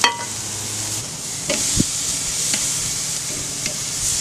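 Flank steaks sizzling steadily on a hot charcoal grill, basted with a butter and beer marinade. A basting brush clinks against a metal saucepan at the start, which rings briefly, followed by a few light clicks and taps of tongs on the grate.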